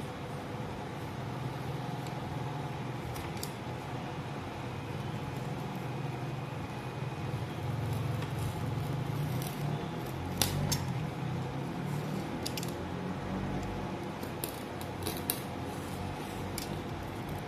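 Snap-off utility knife cutting through a thin wooden sheet along a drawn line: scattered short scraping clicks, bunched about ten seconds in and again near the end, over a steady low hum.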